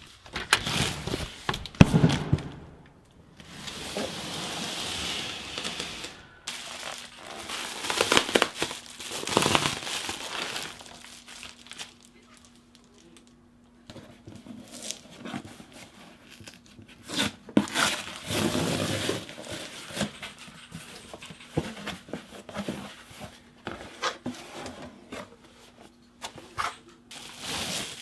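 A cardboard parcel box and its packaging being opened and unpacked by hand: the wrapping crinkles and tears in irregular bursts, with knocks and clicks from handling.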